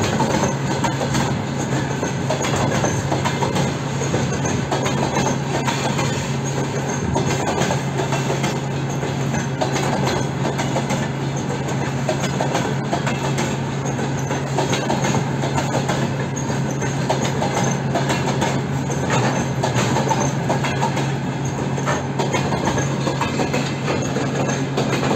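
Freight train of flatcars rolling past at close range: a steady, unbroken rumble of steel wheels on rail with a continuous light clatter over the rail joints.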